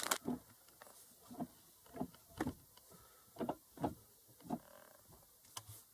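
Manual gear lever of a Volkswagen being worked through the gate, giving a series of short, faint clunks and knocks. The shift is super clunky because of broken gear shift parts that a repair kit is meant to replace.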